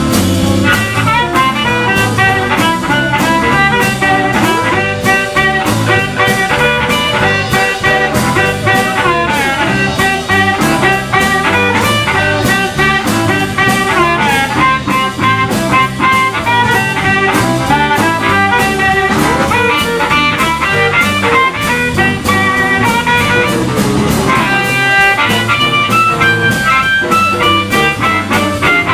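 Live blues band playing an instrumental stretch led by a harmonica played cupped against a hand-held microphone, over a steady beat.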